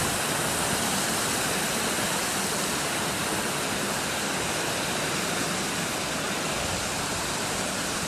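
Steady rushing of water running down a sandstone rock channel in small cascades into a pool.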